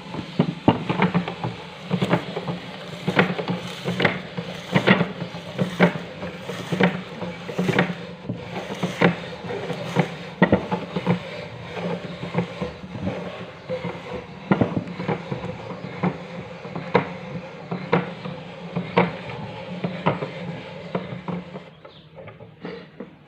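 Meat grinder running with a steady hum while crunching TUC crackers, with irregular sharp cracks as the biscuits break; it gets quieter near the end.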